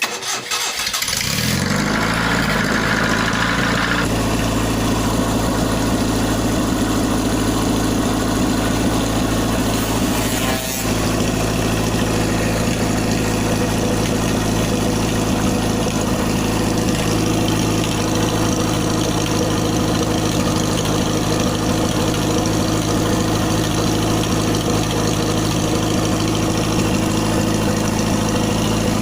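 Car engine fitted with a motorcycle exhaust starting up and then idling steadily.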